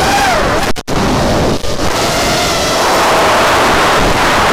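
FPV racing quadcopter's brushless motors and propellers, heard through the onboard camera: a loud rush of prop wash and wind with a motor whine that bends up and down in pitch as the throttle changes. The sound drops out for a split second about a second in, then settles into a steadier whine.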